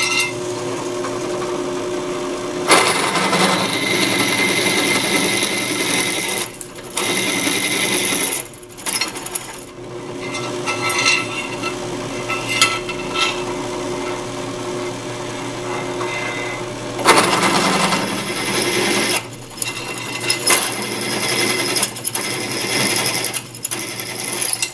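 Drill press running with a 27/64-inch twist drill boring a metal plate. There are louder spells of cutting noise as the bit feeds in, and brief drops as it is backed out to clear the chip.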